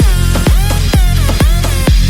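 Electronic dance music with a steady kick drum about twice a second over heavy bass, and synth tones that bend in pitch.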